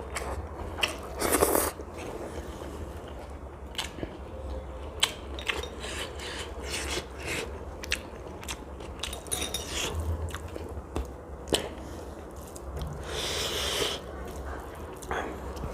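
A person eating close to the microphone: chewing and biting with many short wet clicks and crunches. There is a longer, louder noisy stretch about thirteen seconds in, over a steady low hum.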